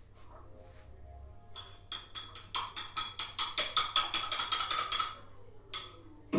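A rapid run of short ringing clicks, about six a second, lasting about three seconds, followed by a single click near the end.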